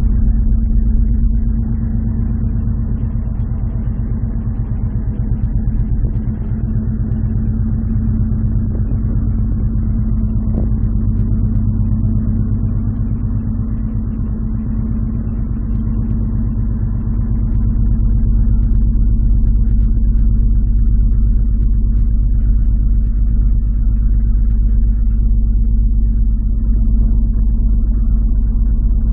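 Wind buffeting the microphone on a ferry's open top deck, a steady low rumble with a constant hum under it, growing stronger in the last third.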